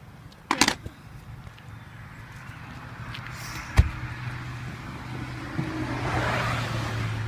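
Remote-control toy car: a brief clatter, a sharp knock, then its motor and wheels running with a steady hum and whir that builds and then eases.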